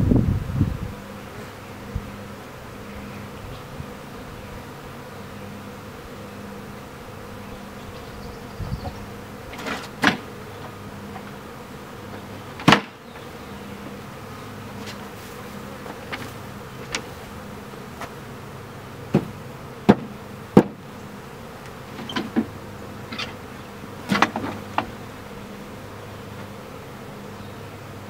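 A swarm of honey bees buzzing steadily as they fly around the hive and find their way in at the entrance. Scattered sharp clicks and knocks sound through the middle and second half.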